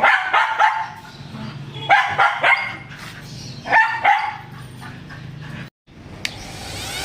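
A dog barking in three short runs of a few barks each, about two seconds apart, over a low steady hum. The sound drops out briefly near the end, then a rising rushing noise begins.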